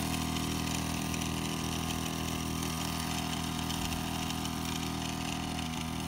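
Two-stroke engine of a backpack power sprayer running steadily at a constant speed while it mists the crop.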